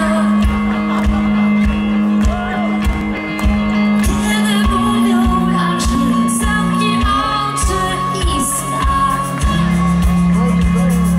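Live band music with a steady drum beat and sustained low notes, and a woman singing into a microphone over it.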